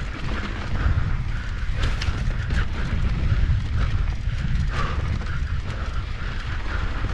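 Mountain bike running fast down a dirt singletrack. Heavy wind rumble on the camera microphone, tyres on dirt, and the bike clattering and clicking over bumps.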